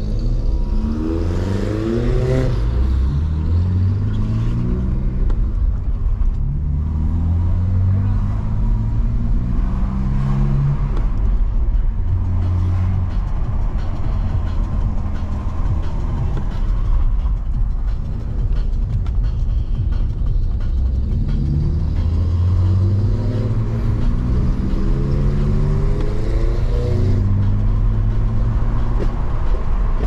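Car engines and exhausts heard from inside the cabin of a BMW E46 325i while following a loud Audi S3: steady engine and road noise, with the revs rising in pitch as the cars accelerate, clearly about a second in and again about twenty to twenty-seven seconds in.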